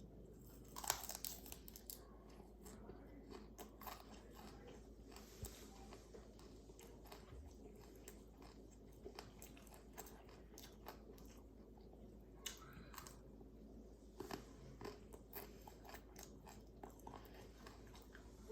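Someone biting into and chewing broccoli: irregular crisp crunches and wet crackles, with the loudest bite about a second in.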